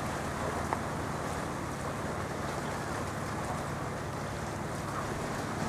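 Steady low drone of a boat's engine, over constant wind and water noise.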